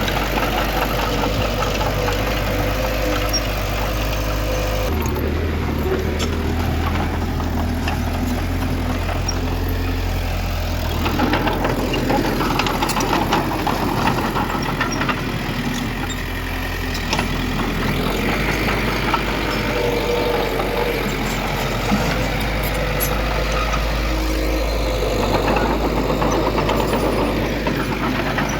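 Diesel engines of earthmoving machinery (bulldozer and dump truck) running steadily, the low engine note shifting about five seconds in and again about eleven seconds in.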